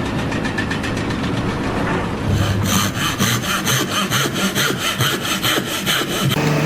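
Rhythmic rasping like sawing or scraping, about five even strokes a second, growing louder and brighter about two seconds in.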